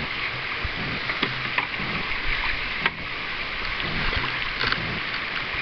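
Shallow river water rushing over stones around a canoe, with the wash and soft knocks of paddle strokes; a single sharp click about three seconds in.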